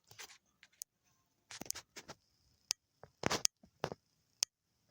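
A scattered series of sharp clicks and short scratchy rustles, about a dozen, irregularly spaced, the loudest cluster a little after three seconds in.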